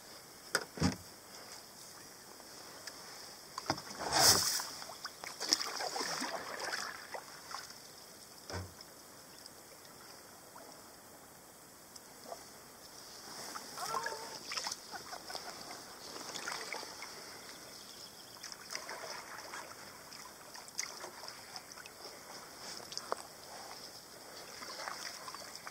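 Kayak paddling up a small stream: the paddle blades dip and drip water against the hull, with a few sharp knocks, the loudest about four seconds in.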